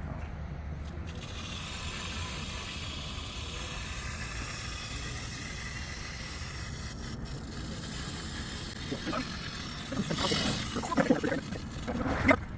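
Water hissing steadily through a partly opened ball valve as the repaired main line slowly refills and the pressure equalizes across the valve. A few knocks and scrapes near the end.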